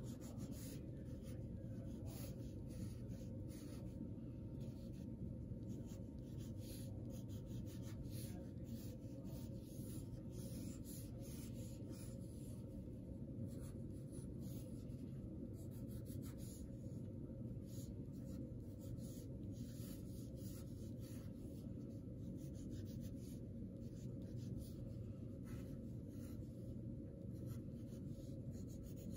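Pencil scratching on paper in short, irregular strokes while drawing small wavy lines, stars and hearts, over a steady low hum.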